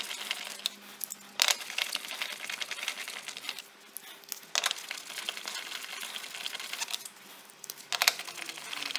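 Wheel bolts being threaded in by hand on a car's front wheel: light metallic handling and scraping with a few sharp clicks, one about a second and a half in and another near the end.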